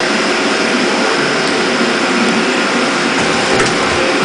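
Miyano ANC-35 CNC turning center running under power, its turret moving: a steady, loud mechanical whirring hum.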